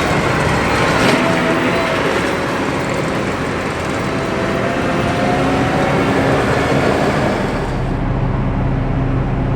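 Heavy farm vehicle's engine running steadily, its pitch easing down at the start. About eight seconds in, the sound changes to a duller, steady low hum.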